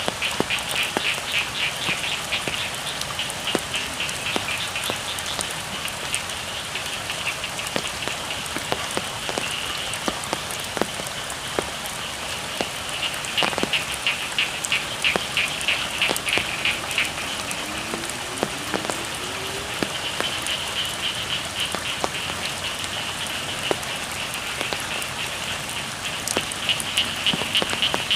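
Steady rain falling, with individual drops ticking, while frogs call in rapid pulsing trills that come in several bouts.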